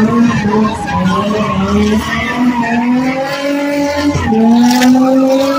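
Drift car's engine revving hard while sliding, its pitch climbing and dropping back several times as the throttle is worked, with tyres squealing.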